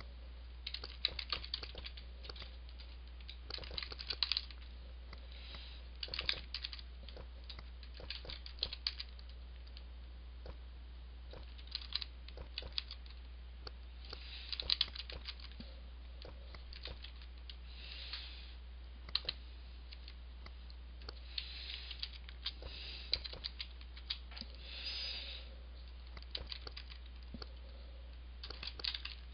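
Typing on a computer keyboard: irregular runs of keystrokes with short pauses between them, over a steady low hum.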